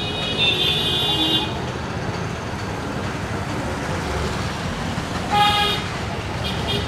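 Steady road-traffic rumble with vehicle horns: a high horn sounding for just over a second at the start, a louder short honk about five and a half seconds in, and a brief faint beep near the end.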